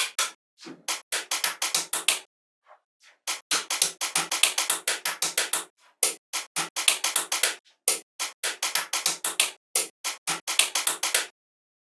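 Quick runs of small sharp taps or clicks, several a second, in bursts broken by short gaps.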